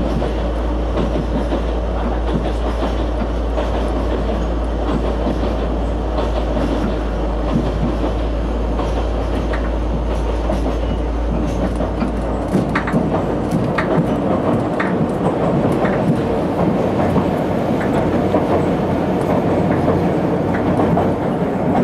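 Oigawa Railway Ikawa Line train running, with the steady rumble of wheels on rail. A low hum drops away about halfway through, and after that the wheels click over rail joints repeatedly.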